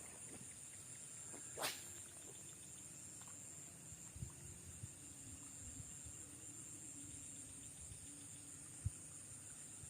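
Insects trilling steadily in a high, continuous band, with one short sharp click a little under two seconds in.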